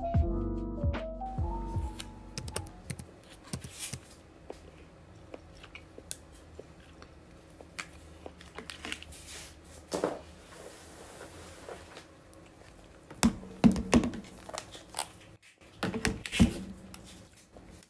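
Soft background music fades out in the first couple of seconds. Then come scattered clicks and crinkles of a thin clear plastic food container being handled and opened, with a few louder knocks near the end.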